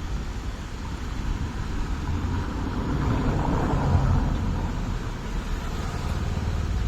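Road vehicle noise: a steady low rumble of traffic, with a vehicle passing close by that builds to a peak about four seconds in and then fades.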